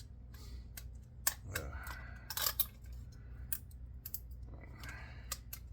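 Scattered sharp clicks and clinks of small hard scrap parts being handled, with a few louder ones about a second and a half and two and a half seconds in.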